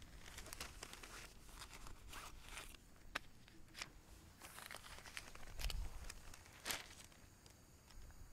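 Newspaper pages rustling and crinkling as they are handled, in an irregular string of soft crackles with a few sharper ones.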